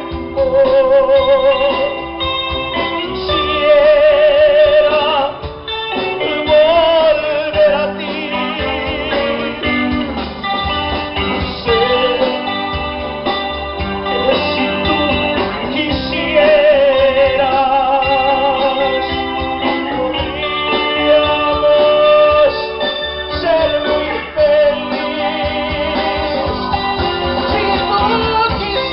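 Band music: a keyboard playing a wavering, organ-like melody over bass guitar, drums and guitar, in an instrumental passage.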